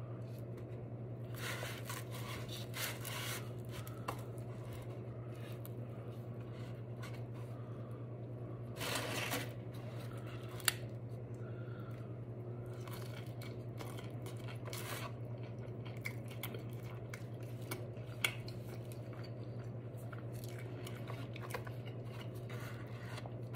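Chewing and crunching of a steak quesadilla and tortilla chips in short, scattered bursts with quiet gaps between them, over a steady low hum.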